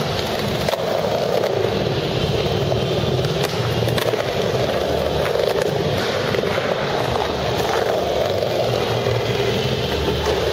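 Skateboard wheels rolling steadily over a smooth concrete floor, a continuous rumble with a few light clicks from the board.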